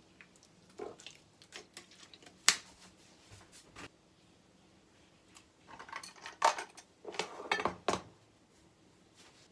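Kitchen countertop handling: light taps and knocks, a sharp click about two and a half seconds in, then a run of clattering and rustling from about six to eight seconds as a plastic lidded container is set down and handled.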